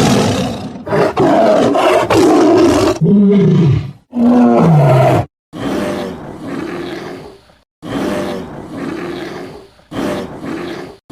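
St Bernard dog roaring and growling as monster sound effects: about eight long, deep roars one after another, some sliding down in pitch, the later ones trailing off.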